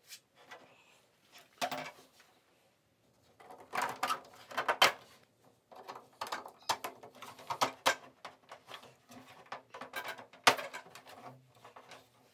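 3D-printed PLA horizontal stabilizer halves being slid onto carbon rods and fitted against the plane's tail section. The handling makes a run of irregular plastic clicks and light knocks.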